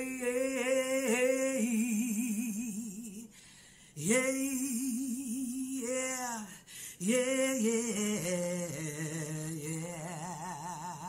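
A woman singing unaccompanied in a bluesy style: three long held notes with a wide vibrato, the last phrase stepping down lower in pitch.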